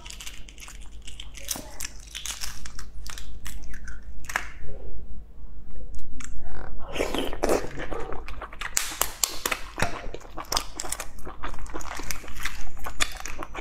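Boiled eggshells being cracked and peeled by hand: many short crackles and clicks of breaking shell, with a denser stretch of crackling about halfway through.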